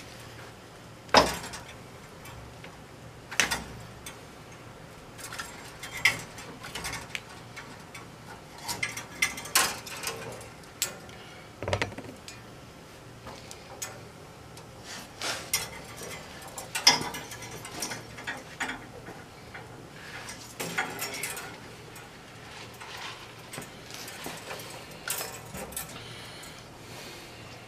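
Irregular metallic clicks and clinks as tools and copper tubing are handled on an old evaporator coil while its TXV and capillary lines are taken off, with a few sharper knocks.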